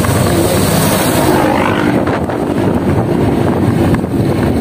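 Steady rush of wind and road noise from a moving vehicle, with a low engine drone underneath.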